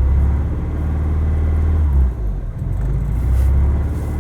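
1991 Honda Prelude Si's B21A1 engine idling roughly with a misfire that new spark plug wires have not cured. The idle surges, sagging about two seconds in and then picking back up.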